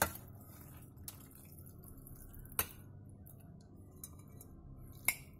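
A few light clinks and knocks of a ceramic plate and serving utensils being handled on a table. The loudest come about two and a half seconds in and near the end, the last with a brief ring.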